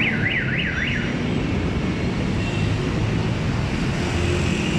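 Busy street traffic noise with a steady low rumble, overlaid in the first second by an electronic alarm tone warbling up and down about three times a second before it stops.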